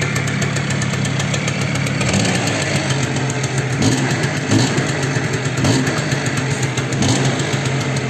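Yamaha Jog Artistic 3KJ scooter's 50cc two-stroke single running with a fast, steady knock, the sign of a worn piston pin (wrist pin). The engine speed briefly rises a few times in the second half.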